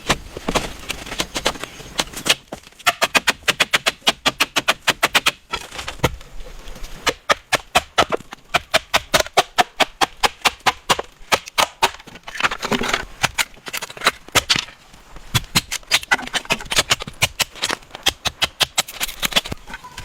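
Rapid runs of sharp knocks and taps, about five a second with short pauses between runs, typical of a hand tool striking bamboo during construction work.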